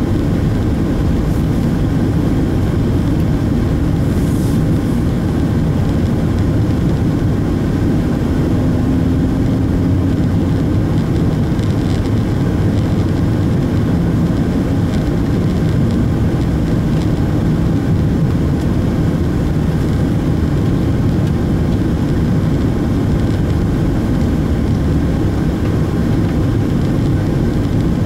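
Opel Astra coupé driving at a steady speed, heard from inside the cabin: a loud, even low rumble of engine and tyres on the road.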